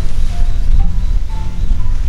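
Background music with a heavy bass line and short melody notes stepping up and down.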